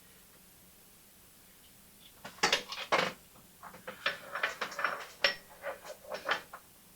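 Near silence at first, then about two seconds in a run of light metallic clicks and clinks: steel Norton Commando gearbox parts being handled and knocking against each other as the kickstart gear is oiled and readied for fitting.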